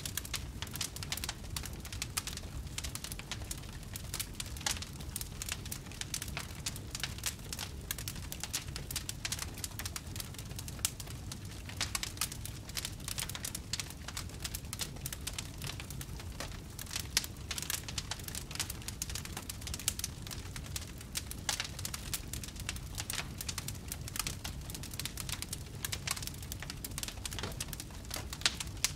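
Wood fire crackling, with many small irregular pops over a steady low rumble of the burning fire.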